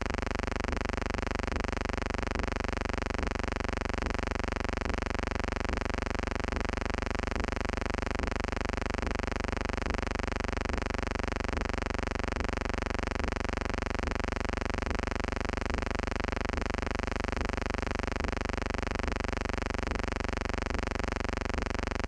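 Steady electrical hum with many overtones and faint, evenly repeating ticks, carrying no sound from the scene itself: the noise track of a silent archival film transfer.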